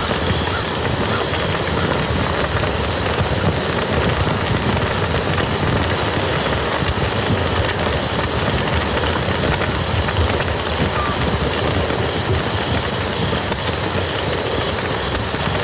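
Wood fire crackling with scattered small pops over the steady rush of a river.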